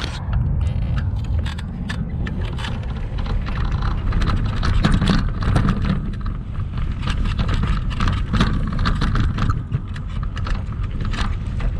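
Kugoo Max Speed Pro electric scooter ridden over rough sandy ground, heard from a camera on its front fender: a continuous low rumble with dense, irregular rattling and clicking from the fender and front end shaking over the bumps.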